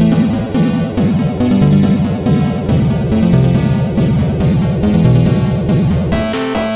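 Layered electronic music with a dense, wobbling low synth line under higher parts; about six seconds in the arrangement switches to a new, cleaner pattern of short repeated notes.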